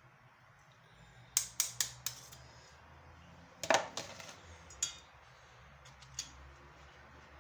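Kitchen utensils and containers clicking and clinking as they are handled: a quick run of four clicks, a louder clatter about two seconds later, then two lone clicks.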